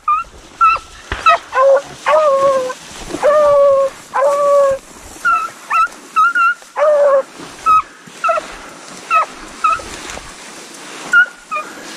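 Deer-hunting hounds barking and bawling, about two calls a second, mostly short chops with a few drawn-out bawls a couple of seconds in.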